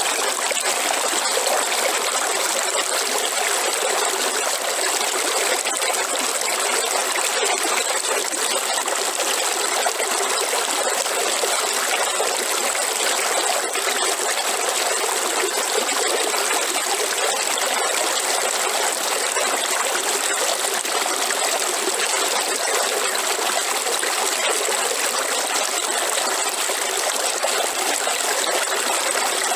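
River water flowing steadily: an even, unbroken sound of running water with little bass.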